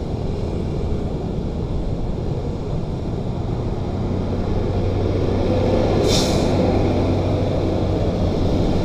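Intercity coach driving past close by over steady road traffic: its engine hum swells as it nears, and a short hiss of air comes about six seconds in, as it goes by.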